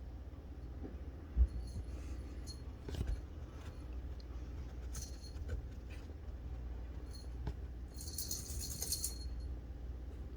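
Low steady hum with scattered faint clicks and a short knock about a second and a half in, then a brief high metallic jingle about eight seconds in.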